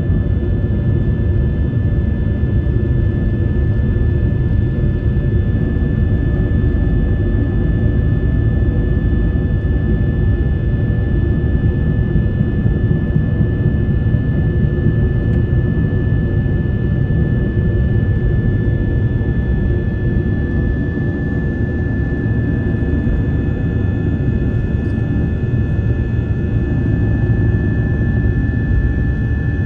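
Jet airliner's engines at takeoff power, heard from inside the cabin: a steady loud rumble with a high whine held on one pitch. The whine grows a little stronger in the second half.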